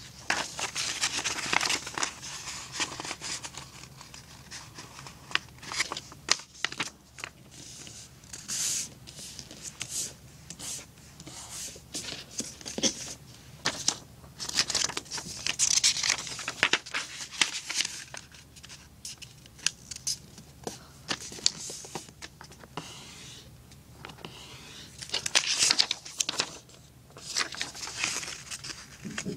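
A sheet of paper being handled and folded into a paper airplane: irregular crinkling and rustling with sharp creasing strokes.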